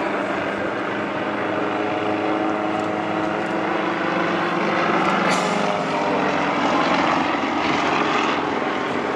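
Two single-engine aerobatic propeller planes flying in formation overhead: a steady engine-and-propeller drone that grows a little louder past the middle as they come closer.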